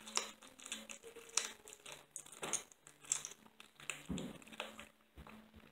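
Kitten eating raw food from a bowl: irregular wet smacking and clicking of licking and chewing, with a soft low thump about four seconds in.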